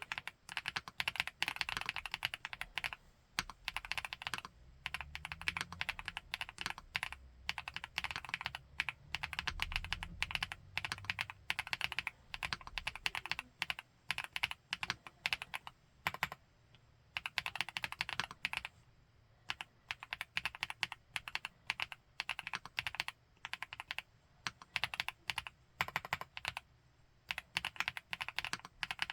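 Fast, continuous typing on an FL-ESPORTS Geo75 mechanical keyboard with Kailh Love Pink switches and Funkeys BCP keycaps, with a few brief pauses.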